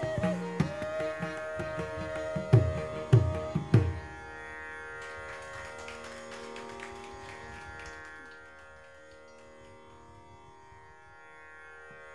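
Carnatic bamboo flute holding a long note over violin, with loud mridangam strokes; the ensemble ends its piece about four seconds in. After that only a steady shruti drone sounds.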